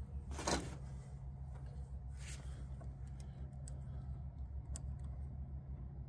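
Quiet handling sounds of fitting rubber hose and crimping an Oetiker ear clamp with pincer pliers: a brief rustle about half a second in, a fainter one around two seconds, and a few small clicks, over a steady low hum.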